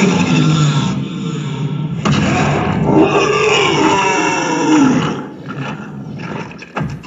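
Monster roaring and growling for a plush-toy monster fight: a long, wavering roar about two to five seconds in, then a quieter stretch with a few knocks near the end.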